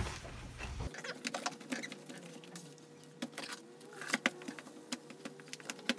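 Hands handling an original VW Beetle vinyl door card with fibreboard backing: scattered light clicks, taps and scratchy rubbing as the panel is pressed down and turned over.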